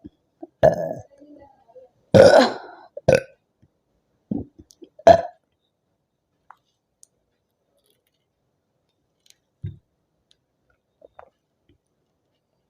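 A woman burping five times over about five seconds, the second burp the longest, brought up by the carbonated soda she is chugging.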